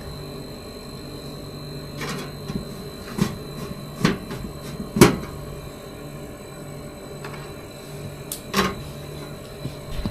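Steady hum of a running refrigerator, with about half a dozen irregular knocks and clatters of panels or parts being handled, the loudest about five seconds in.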